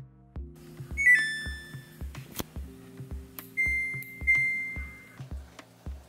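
Samsung washing machine control panel beeping as a two-button hold toggles its sound setting: a short falling chime about a second in, then a long steady high beep around three and a half seconds in, sounding again just after four seconds, over background electronic music with a steady beat.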